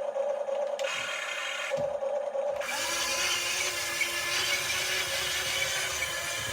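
A small electric motor whirring steadily, changing to a lower, rougher running sound about two and a half seconds in.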